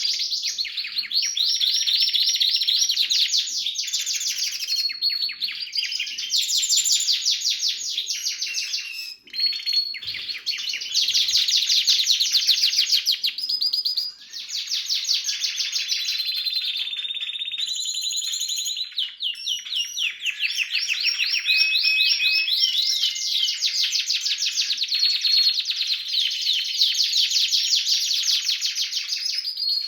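Canaries singing, a Harz roller canary among red and variegated canaries: a near-continuous song of fast trills and rolls, with brief pauses about nine and fourteen seconds in.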